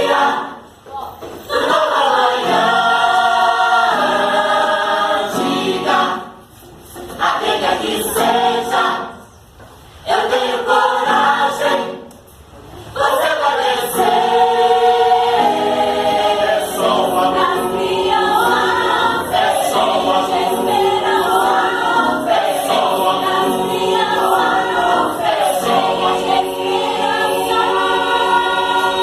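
Mixed choir singing a song, phrases broken by three brief pauses in the first half, then singing on without a break.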